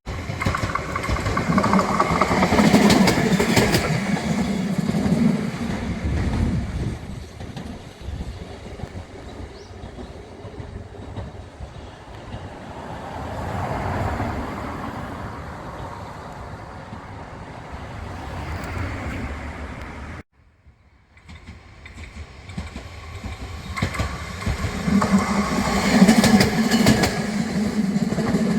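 A rail vehicle running along the track. It is loudest in the first few seconds, dies down and swells again, then breaks off briefly about twenty seconds in before another passage builds up, loud again near the end.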